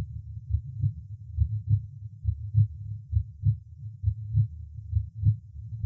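Normal heart sounds through a stethoscope over the pulmonary valve area, the second intercostal space left of the sternum. A steady lub-dub rhythm of paired thumps, a little over one beat a second, over a low steady background hum. Here the second sound is louder than the first, as over the aorta.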